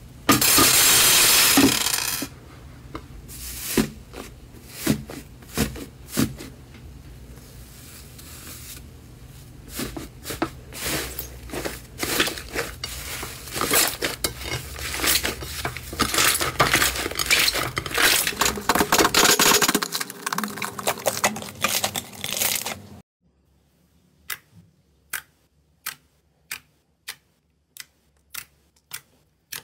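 Slime being kneaded and squeezed by hand: dense, crunchy crackling and squelching. Near the end comes a run of single sharp pops, about one or two a second, as a finger presses into clear slime.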